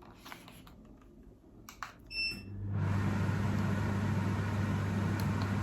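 Axminster Craft workshop air filter switched on by its radio remote: a click and a short electronic beep, then about three seconds in its fan motor starts and runs steadily, with a low hum under the rush of air.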